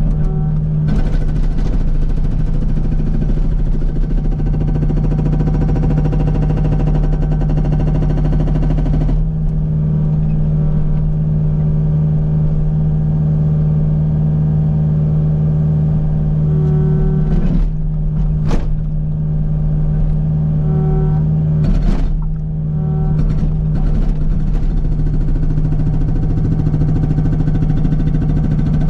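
Kubota U55 mini excavator's diesel engine running steadily at high revs under hydraulic load, with a dense, rapid rattle over it for the first nine seconds or so, typical of the hydraulic breaker hammer working, that stops abruptly. A few sharp clunks near the middle.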